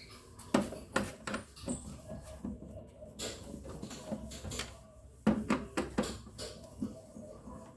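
Irregular clicks, knocks and plastic rattles of a flat-screen TV and its back cover being handled while it is taken apart, with a heavier cluster of knocks about five seconds in.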